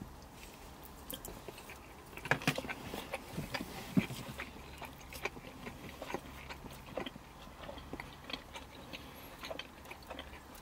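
Two people chewing mouthfuls of burger close to the microphone: many small wet clicks and crackles, with a cluster of louder bites and chews between about two and four seconds in.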